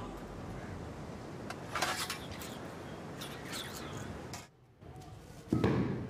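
Sea surf washing under a few bird chirps. A couple of sharp clacks come about two seconds in, and a heavy thump near the end.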